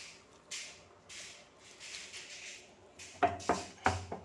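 Crushed ginger being scraped into a pot of water: soft scraping and rustling, then four quick knocks of a utensil against the pot in the last second.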